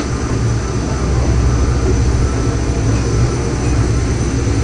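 Steady low machinery rumble with a faint, steady high-pitched whine, heard inside an airport jet bridge.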